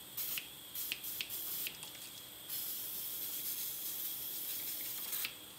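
Aerosol spray can spraying: a few short spurts, then about two and a half seconds in a steady hiss of spray that lasts nearly three seconds. The can had lost its propellant pressure and sprays again after being refilled with compressed air.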